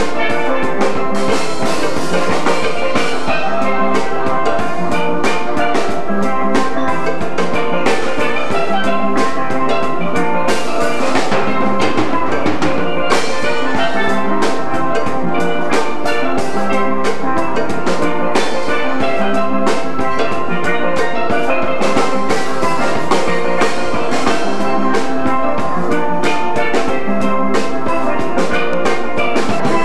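Steel band music: steel pans playing a melody over drums with a steady beat.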